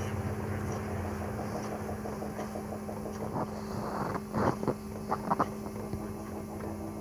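Rhaetian Railway electric railcar standing with a steady mechanical hum from its running equipment. A few sharp clunks come about four to five and a half seconds in.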